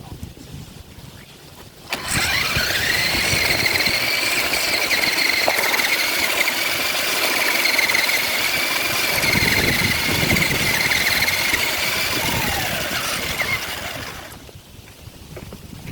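Radio-controlled car's motor running at speed with a high-pitched whine. It rises in pitch about two seconds in, holds steady for about twelve seconds, then falls away and dies out near the end.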